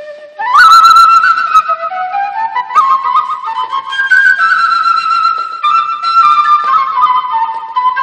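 Solo wooden end-blown flute playing a melody. It slides up to a high note about half a second in, steps down, climbs again and then slowly descends, with vibrato on the held notes.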